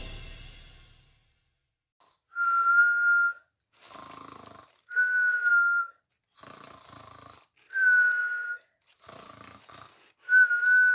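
Cartoon-style snoring: a quiet rasping in-breath alternating with a steady high whistle on each out-breath, four whistles about two and a half seconds apart.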